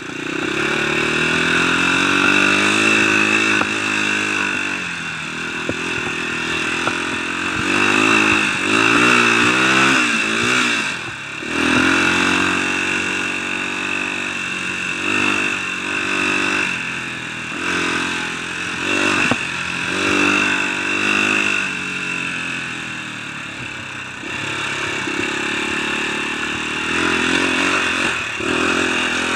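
Dirt bike engine under way, its pitch rising and falling again and again as the throttle opens and closes, heard close up from a camera on the bike, with a steady high hiss over it. The engine briefly drops off about eleven seconds in.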